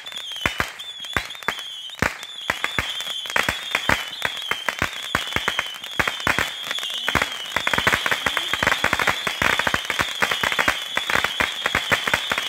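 Consumer firework cake firing shot after shot: rapid, irregular pops and crackles, growing denser from about halfway through, over a high warbling whistle.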